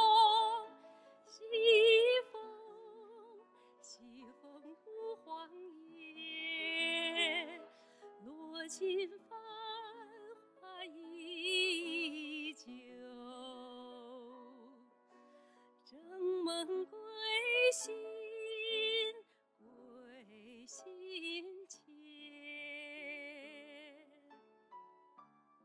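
A woman singing a slow Chinese art song over piano accompaniment, with wide vibrato on long held notes; the voice comes and goes between phrases.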